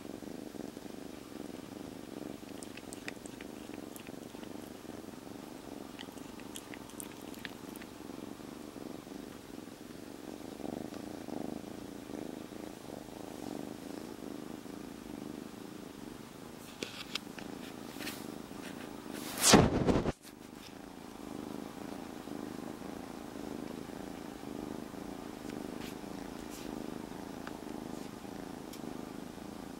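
Kitten purring steadily and continuously. About twenty seconds in, a single brief loud noise cuts across the purr for under a second.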